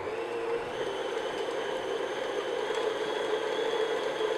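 Stand mixer motor running at a steady pitch as the flat beater works stiff almond cookie dough in the bowl, giving the dough a final brief mix.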